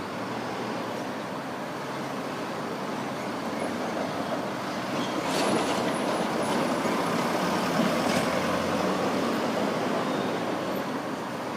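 Streetcar running on street track past the stop: a rumble that builds to its loudest about halfway through, with a few clicks from the wheels and rails, and then eases off.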